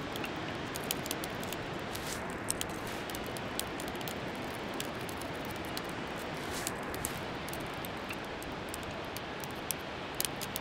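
Steady wash of surf breaking along an open beach, with scattered faint ticks.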